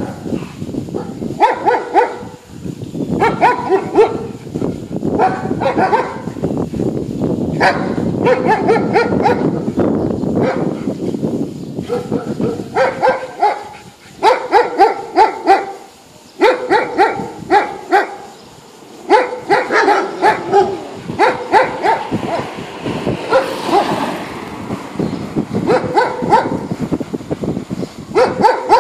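Dogs barking repeatedly, in runs of several barks with short pauses between the runs.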